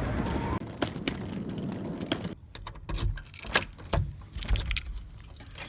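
A steady low background rumble that drops away about two seconds in, followed by a run of irregular light clicks and clinks.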